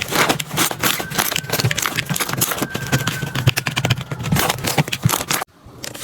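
Slime being squeezed and pressed by hand, making a dense run of crackling, popping clicks. The sound drops out briefly about five and a half seconds in.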